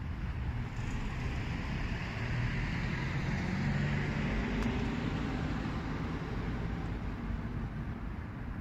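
Road traffic: a motor vehicle passing, its engine and tyre noise growing louder toward the middle and then slowly fading.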